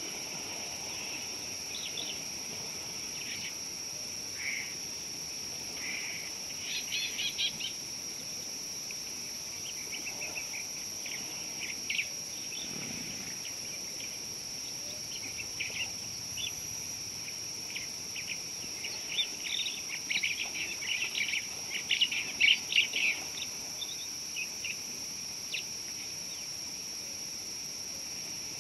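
Steady high-pitched insect drone, like crickets, with repeated bursts of bird chirping on top; the chirping is busiest about two-thirds of the way through.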